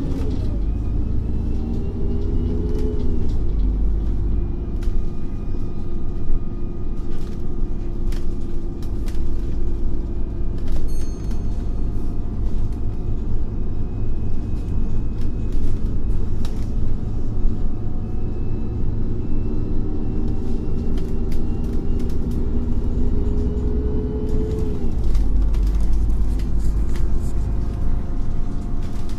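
An Irisbus Cityclass city bus's Iveco Cursor 8 CNG engine running with a deep rumble. The engine note climbs and then drops back sharply twice, in the first few seconds and again about 25 seconds in, with scattered rattles and clicks.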